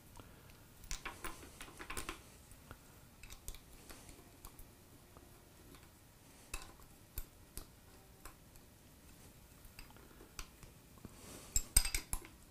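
Faint metallic clicks and clinks of an Allen wrench working a socket-head cap screw into a three-jaw chuck's mounting bolt hole, with a quick cluster of louder clinks near the end.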